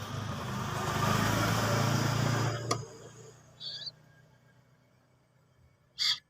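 Traffic noise from a passing motor vehicle, a rushing sound over a steady low engine hum, that cuts off sharply just under three seconds in. Two short high peeps follow in the quiet, one near the middle and a louder one near the end.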